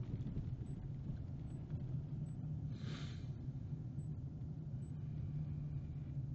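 Steady low rumble, with one short hiss about three seconds in.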